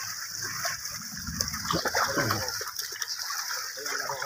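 Yoked pair of bulls wading through a flooded, muddy field, dragging a wooden plank leveller (sohaga): water and mud sloshing and splashing. A low, falling call is heard about halfway through.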